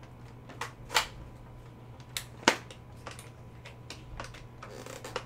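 Sharp plastic clicks and knocks, about half a dozen spread over the seconds, the loudest about two and a half seconds in, from handling a Nerf Fortnite AR-L blaster and working its parts.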